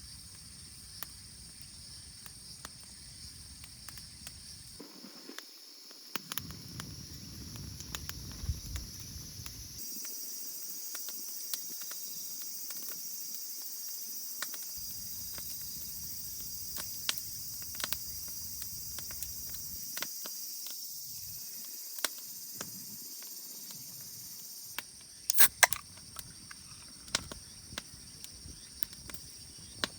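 Insects trilling steadily at a high pitch, with scattered small clicks and a brief cluster of louder clicks about 25 seconds in.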